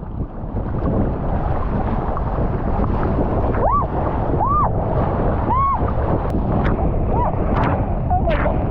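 Steady wind buffeting and rushing against the microphone, with several short rise-and-fall whistle-like calls partway through.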